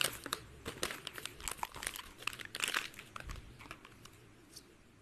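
Crinkling and rustling of the Koko Krunch cereal packet being handled and opened. Dense crackles for about three seconds, thinning out and fading after that.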